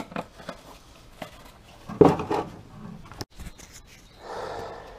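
Handling noises: scattered clicks and rustling, with a louder rough rustle about two seconds in and a soft breathy rush near the end.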